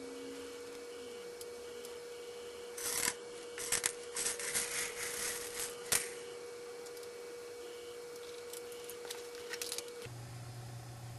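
Plastic airsoft BBs being loaded into the firing tray of a home-made airsoft claymore mine. A few short rattling bursts come in the middle, with a sharp click near the end of them, and it is quiet around them.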